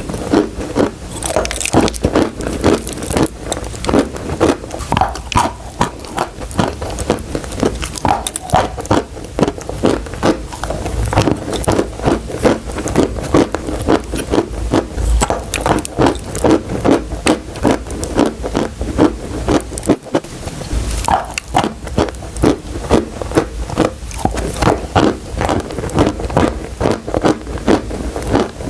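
Close-miked chewing of crunchy chalk and clay: a steady run of crisp crunches, about two to three a second, with a short pause about two-thirds of the way through.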